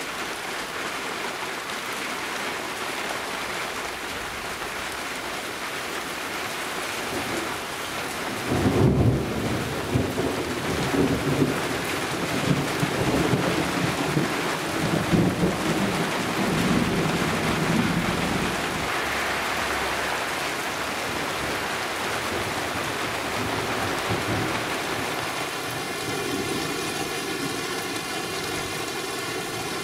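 Steady rain falling through a thunderstorm. About a third of the way in, a long roll of thunder breaks out suddenly and rumbles in uneven peaks for around ten seconds before fading back under the rain.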